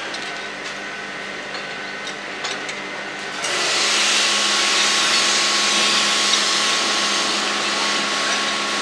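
Workshop machine noise: a steady motor hum with a few light tool clinks. About three and a half seconds in, a loud steady hiss sets in and carries on.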